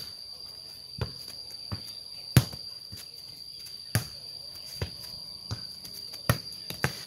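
A light ball kicked and juggled back and forth with bare feet, each touch a sharp thud, about nine in all at an uneven pace, the loudest about two and a half seconds in. Insects keep up a steady high shrill underneath.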